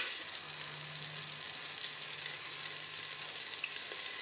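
Butter melting and sizzling in the hot base of a pressure cooker: a steady frying hiss, with a faint low hum underneath.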